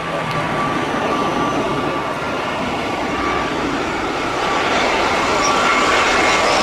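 Airbus A320-214's CFM56-5B turbofan engines on a landing approach: a steady rush of jet noise with a thin whine, growing louder as the airliner flares just above the runway.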